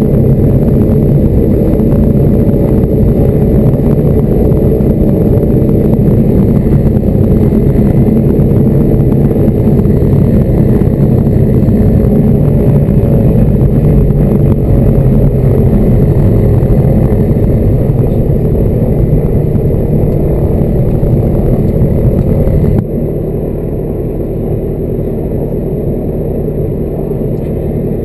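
Diamond DA40 light aircraft's piston engine and propeller running steadily, heard loud from inside the cockpit. About 23 seconds in, the sound drops suddenly to a quieter, duller level and holds there.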